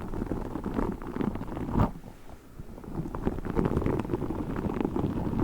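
Tiny spiky orbeez squishy balls squeezed and rubbed in the hands close to the microphone, a dense run of small crackles and rubbing sounds, with one louder snap about two seconds in.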